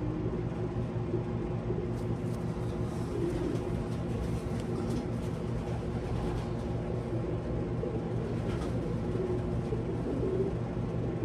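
A steady low mechanical hum, with faint pigeon coos a couple of times.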